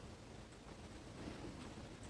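Faint rustling of embroidery fabric and thread handled by fingers, with a soft brush or two.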